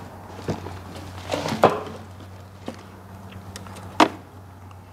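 Scattered clicks and knocks of a brake line being bent and handled, over a steady low hum, with two sharper knocks about a second and a half in and about four seconds in.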